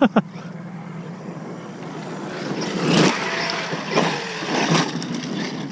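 Large electric RC monster trucks driving on dirt: brushless motor whine and tyre noise, rising from about two and a half seconds in, with bursts of throttle near three, four and five seconds.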